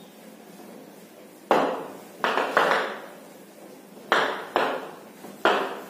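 Handheld eraser wiping a whiteboard in six short, brisk strokes, each starting sharply and fading quickly.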